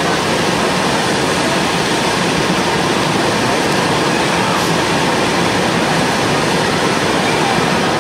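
Several hand-held bamboo tube fireworks (tezutsu hanabi) spraying fountains of sparks at once: a loud, steady rushing hiss.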